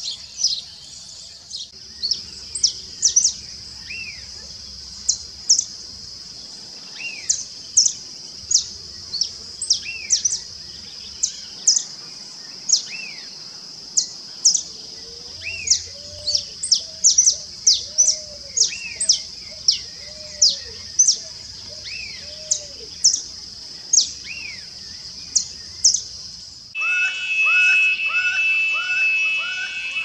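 Saffron finch (canário-da-terra) singing: a long run of short, sharp, high chips and brief phrases over a steady high hiss. About 27 seconds in this gives way abruptly to a laughing falcon (acauã) calling, a louder series of evenly repeated notes, about two or three a second.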